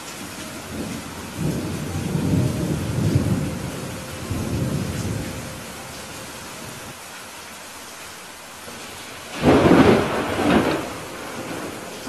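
Thunderstorm: steady rain hissing throughout, with a long low rolling rumble of thunder in the first half. Near the end comes a sharper, louder clap of thunder that rumbles off.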